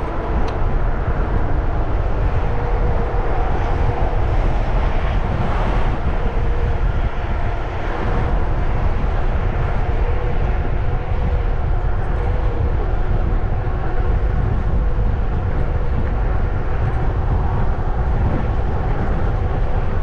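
Wind rushing over the microphone of a camera on a moving bicycle: a loud, deep, steady rush.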